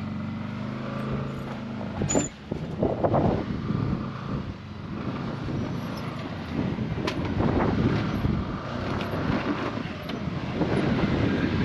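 Off-road side-by-side's engine revving up and down under load as it climbs a rocky obstacle, with a few sharp knocks along the way. The CVT belt is worked hard enough that the rider calls it burning belts.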